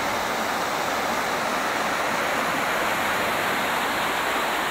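Small waterfall rushing steadily down a rocky channel, a continuous even splashing of falling water.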